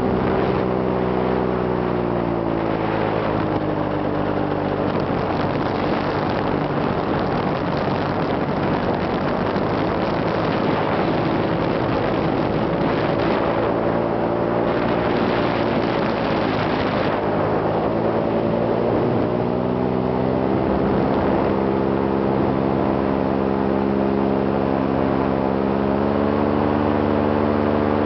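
Engine of a small aircraft heard from on board, a steady drone with wind rush. Its pitch drops a few seconds in and rises again in the second half.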